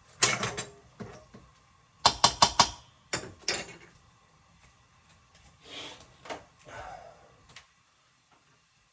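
Kitchen clatter: a quick run of four sharp knocks about two seconds in, a couple of single knocks after it, then softer scraping and rustling of cooking things being handled.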